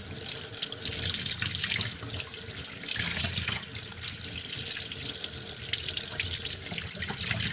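Kitchen tap running steadily, the water splashing over a piece of salt-cured turkey meat being rubbed clean by hand and into a stainless steel sink: rinsing the salt cure off the meat.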